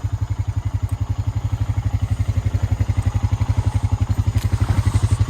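Honda Rubicon 520 ATV's single-cylinder four-stroke engine idling steadily, an even, rapid run of low exhaust pulses.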